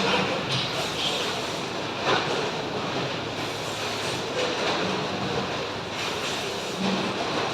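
Steady clattering machinery noise with scattered knocks, the clearest about two seconds in and near the end, typical of factory sound effects.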